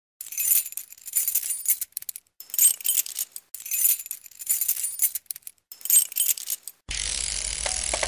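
Intro sound effect of bright, high clicking and rattling in clusters about a second apart, with no low end. About seven seconds in, a fuller, steady sound with a low hum takes over.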